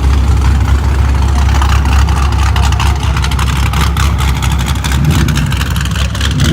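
Car engine rumbling steadily at low revs, loud, with a dense run of sharp crackles from about two seconds in.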